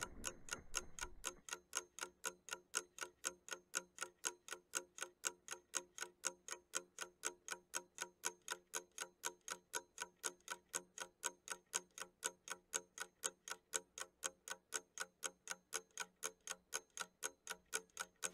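Clock ticking steadily and evenly, about four ticks a second.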